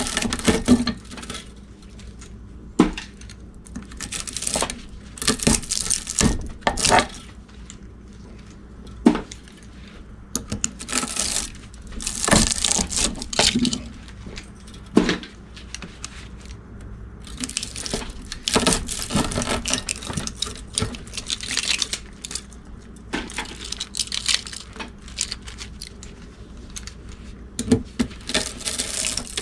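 Copper windings being pried and pulled out of a steel electric motor stator with pliers: irregular metallic clinks and knocks as the pliers strike the stator, between stretches of scraping and tearing as the wire and its varnished insulation are dragged free.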